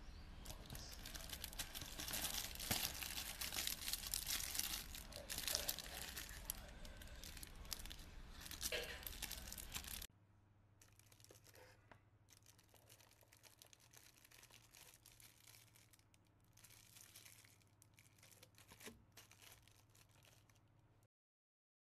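Plastic bags wrapping water-filter cartridges crinkling and rustling as they are handled, with many small crackles. About ten seconds in it drops suddenly to much quieter, scattered rustling.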